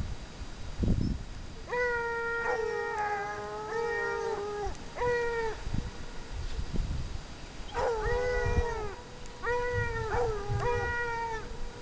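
Ariégeois scent hounds baying in long, drawn-out notes, several calls at a time and sometimes overlapping, with a short lull in the middle. The hunter takes it as a sign that they have moved the hare.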